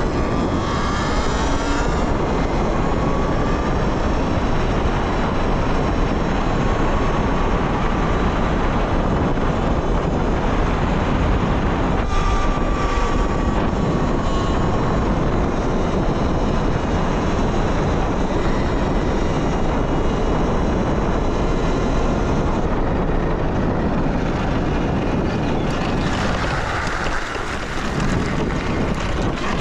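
Talaria Sting electric dirt bike being ridden over rough trail: a steady rush of wind and riding noise, with the electric motor's faint whine rising and falling now and then.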